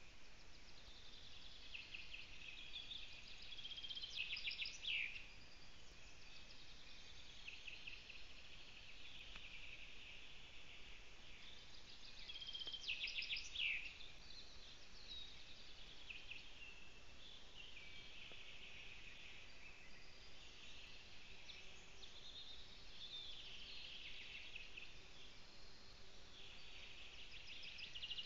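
Wild songbirds singing in the surrounding forest, a chorus of short phrases with one song standing out louder three times, each ending in a falling flourish, over a faint steady outdoor hiss.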